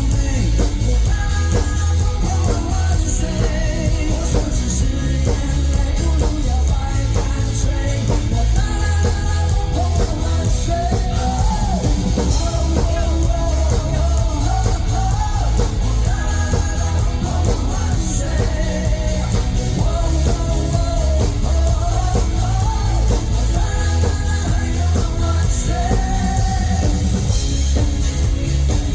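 Live rock band playing loudly, a heavy, steady bass and drum-kit beat under a wavering sung melody line.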